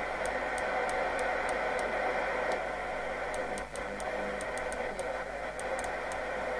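Thunderpole T2000 CB radio's speaker giving a steady hiss of band noise and static as the channel knob is turned, stepping quickly from channel to channel, with a scattering of faint ticks.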